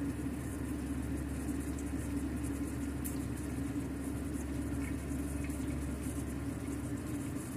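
A steady low mechanical hum with rumble beneath it and faint scattered crackles above.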